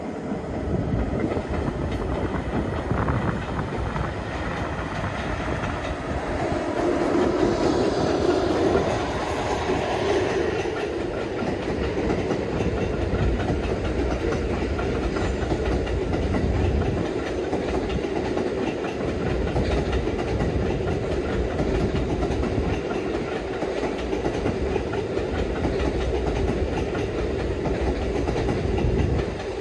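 JR Freight DF200 diesel-electric locomotive passing over a viaduct, hauling unpowered H100 railcars. Its engine sound is loudest about seven to ten seconds in, then gives way to a steady rumble and clickety-clack of the railcars' wheels over the rail joints.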